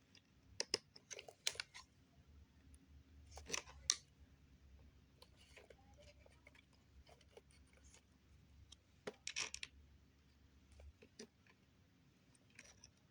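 Scattered small clicks and scrapes of hand-tool work on a toy RC car as a screw is worked out, with a slightly louder cluster about four seconds in and again about nine seconds in.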